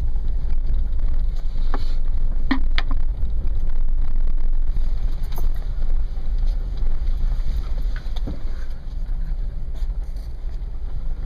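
Steady low rumble of off-road 4x4 engines mixed with wind buffeting the microphone, with a few light knocks.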